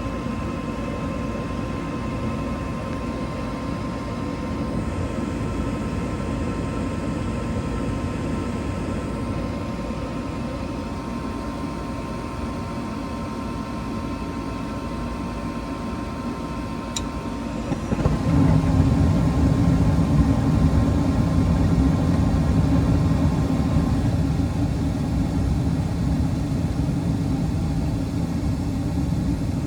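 Gas furnace draft inducer motor running with a steady hum and a faint whine. A little past the middle there is a click, and the five gas burners light at once with a sudden, louder low rumble that keeps burning alongside the inducer.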